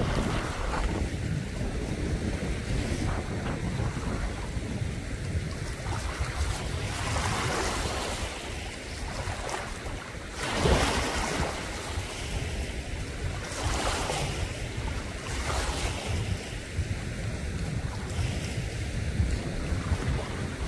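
Wind rumbling on the microphone, with several louder rushing swells, the strongest about halfway through.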